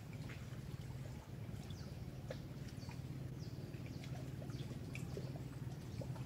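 Faint shoreline ambience: small waves lapping at the water's edge under a steady low rumble, with scattered short, high, falling chirps.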